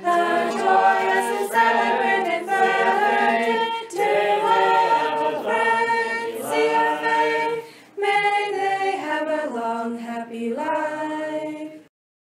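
A group of voices singing a birthday song in harmony, unaccompanied, with held notes changing every second or so; the singing stops abruptly about a second before the end.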